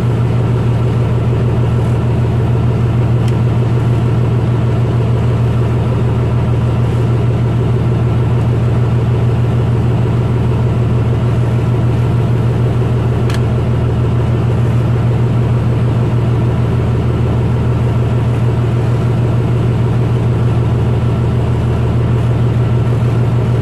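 Fishing boat's engine running steadily under way, a deep even drone.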